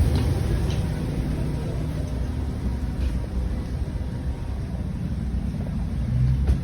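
Steady low rumble of airport machinery noise, with a few faint clicks.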